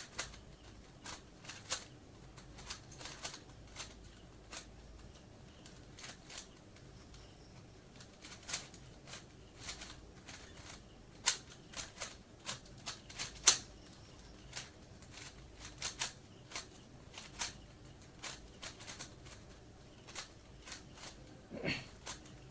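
A 3x3 Rubik's cube being scrambled by hand: its plastic layers twisted in quick, irregular turns, making a string of sharp clicks and clacks.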